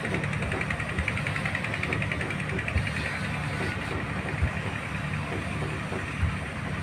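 Boat engine running steadily: a low rumble with a fast, even rattle on top, and a few sharp knocks.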